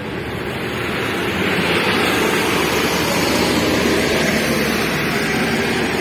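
A steady rushing noise, like a roar of air, that grows louder over the first two seconds and then holds steady.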